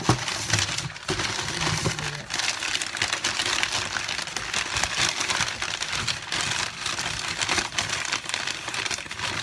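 Crumpled white packing paper rustling and crinkling as it is pulled out of a cardboard box, a continuous dense crackle.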